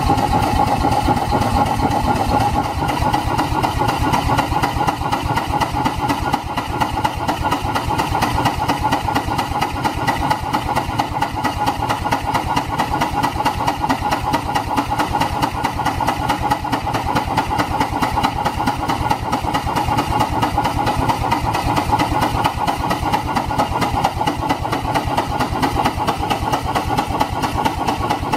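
Atlas automatic steam engine running at its governed speed, with rapid, steady exhaust beats that come unevenly. The valve timing is off when the engine is on the governor, so it behaves like a single-acting engine instead of a double-acting one.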